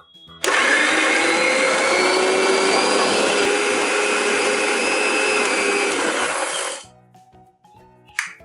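Kitchen mixer grinder (mixie) running steadily for about six seconds, grinding amla (Indian gooseberry) pieces dry, without water, into pickle paste. It starts about half a second in and is switched off about a second before the end.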